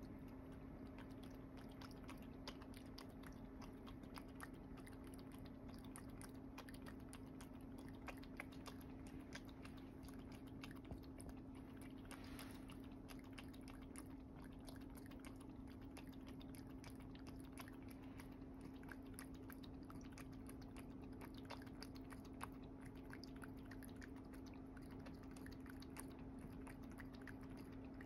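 A cat lapping water from a small stainless-steel cup: a long run of quick, faint tongue laps and clicks over a steady low hum.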